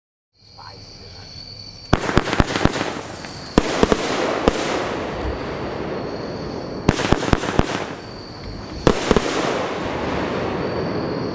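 A 16-shot 500 g consumer firework cake firing: after a short quieter stretch, groups of sharp bangs with crackle begin about two seconds in and come back every two to three seconds.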